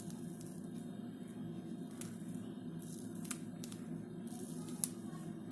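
Soft squeezing of a plastic piping bag as meringue is piped onto chocolate, over a steady low hum of room noise, with a few faint clicks and one sharper tick near the end.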